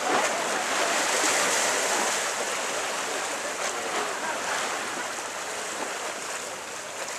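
Steady rushing noise of harbour water and wind, easing a little toward the end.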